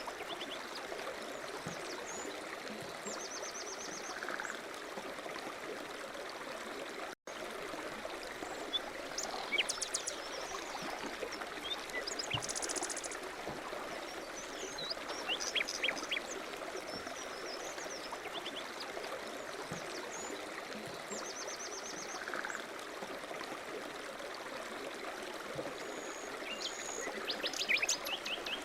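Steady running water, like a stream, with short bird chirps and trills scattered over it. The sound cuts out for an instant about seven seconds in.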